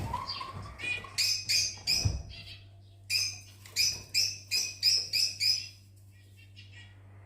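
Fischer's lovebirds calling in a run of short, high chirps, about three a second, that stops about six seconds in. There is a low thump about two seconds in.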